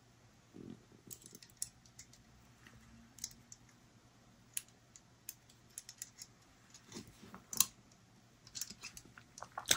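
Faint, irregular light clicks and taps of small steel revolver parts being handled as the hammer strut and its spring are worked into the recess on the back of a Taurus 856's hammer.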